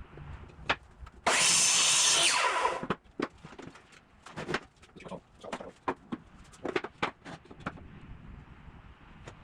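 A power saw cutting through a pallet-wood board for about a second and a half, starting suddenly and then stopping. It is followed by a run of sharp wooden knocks and clicks as the cut boards are handled.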